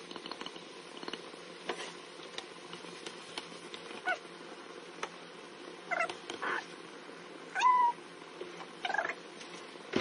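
A pan of minced meat and tomato sauce cooking on a gas burner, a steady faint noise with a few light clicks from stirring. Five short high-pitched calls stand out over it, about four, six and six and a half seconds in, a louder one near eight seconds and another about nine seconds in.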